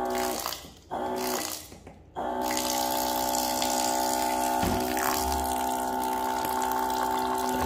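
Electric dispenser pump on a bottled-water jug pouring a stream into a rice cooker pot of rice. It runs in two short bursts, then from about two seconds in it runs steadily, its motor hum over the sound of the water splashing onto the rice.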